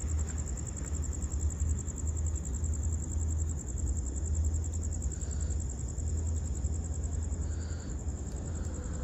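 Crickets trilling steadily in one high, unbroken tone over a low rumble.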